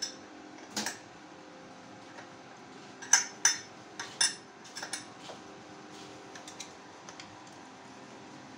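Sharp metallic clinks and knocks of a wrench and tools on the engine as it is turned over by hand to bring piston 1 up to top dead centre. A cluster of loud clinks comes about three to four and a half seconds in, then lighter ticks.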